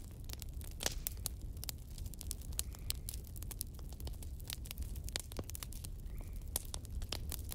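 Steady low rumble with sparse, irregular crackling clicks.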